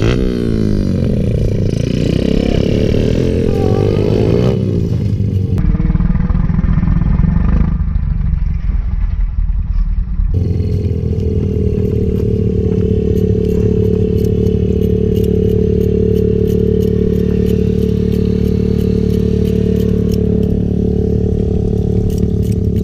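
Dirt bike engines revving and accelerating, their pitch rising and falling over the first few seconds. From about ten seconds in, an engine runs at a steady idle.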